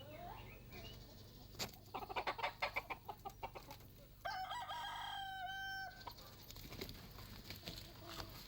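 A rooster crowing once: a held call of under two seconds about halfway through, dipping in pitch at its end. A quick run of clucking comes just before it.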